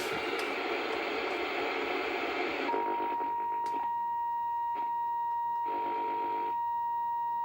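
Small portable black-and-white TV's loudspeaker giving a steady hiss of static, which gives way after about two and a half seconds to a steady high tone, typical of a test signal picked up once a station is tuned in. Short buzzy patches come and go over the tone.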